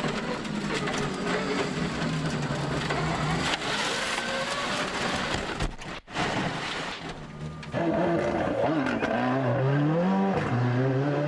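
A rally car's engine revving hard, heard from onboard on a gravel stage. The pitch climbs and then drops at each gear change, with the noise of the car over the surface behind it. There is a brief break about six seconds in.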